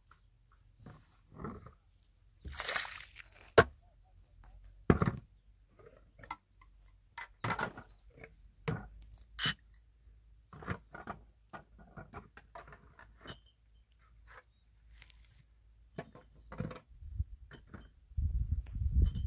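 Scattered knocks and clicks, with a short hiss about three seconds in and a low rumble starting near the end.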